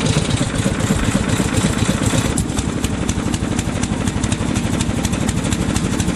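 Small air-cooled pull-start engine of a motor dog (tracked snow tractor) idling with a rapid, even putter, close to the microphone.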